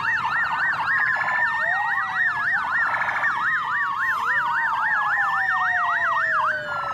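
Electronic police siren sound: a fast yelp sweeping up and down about four times a second, overlaid with slower falling wails. It cuts off suddenly.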